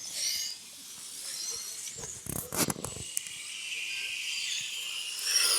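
Radio-controlled racing cars running around the track, their motors giving a high whine that rises and falls as they pass, with a short rush of noise about two seconds in.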